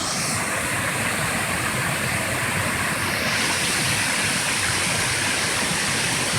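Small waterfall splashing and rushing steadily.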